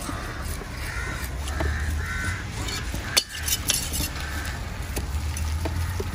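Crows cawing repeatedly over a steady low rumble of traffic. A large knife strikes a wooden chopping stump with a sharp knock about three seconds in, followed by a few lighter knocks and clicks.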